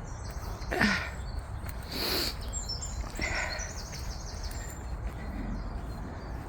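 Small songbirds chirping, with a quick trill of repeated high notes a few seconds in, over a steady low outdoor rumble.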